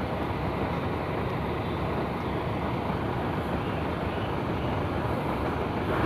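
Heavy truck's diesel engine running steadily, an even unbroken rumble.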